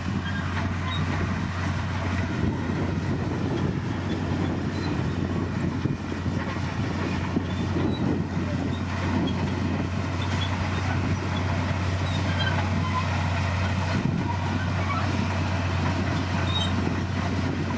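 Komatsu D60P bulldozer's diesel engine running steadily, with a constant low hum.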